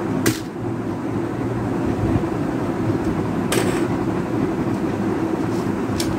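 A steady low rumbling hum, with three sharp clicks spaced a few seconds apart as a plastic wireless keyboard is handled and checked for its battery.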